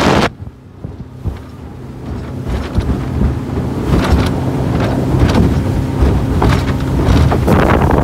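Wind buffeting the microphone over the steady drone of a tour boat's engine. The wind drops away just after the start, then builds back up.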